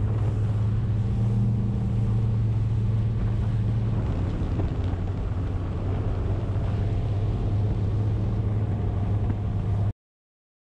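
Bass boat's outboard motor running steadily at speed, a low drone with wind and water rushing past the hull; the new engine is being broken in. The sound cuts off abruptly near the end.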